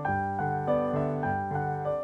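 Background piano music: a steady run of notes, about three a second, over a repeating low bass note.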